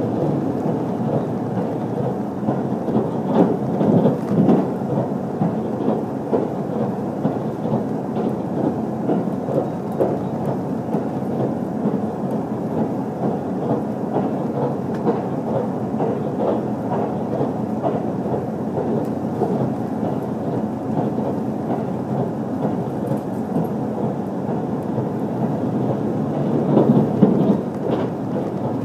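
Steady rumble of an HC85 hybrid diesel train running at speed, heard from inside the passenger cabin: wheels on rail with scattered faint clicks. The rumble swells louder about four seconds in and again near the end.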